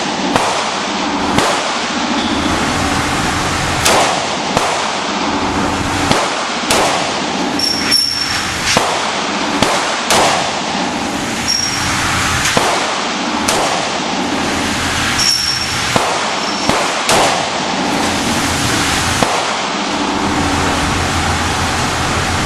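Taurus .38 Special revolver being fired: a string of sharp shots, roughly one every one to two seconds, over a steady background hiss.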